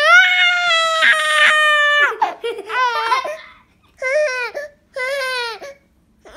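Infant crying: one long, steady wail of about two seconds, then three shorter cries with pauses between them.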